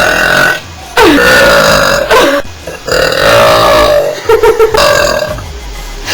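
Girls burping loudly, one long drawn-out burp after another, about five in a row, several dropping in pitch at the start and then holding steady.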